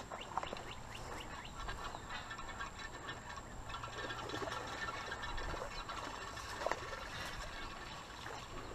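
Outdoor ambience with scattered short bird chirps and small ticks over a soft steady hiss.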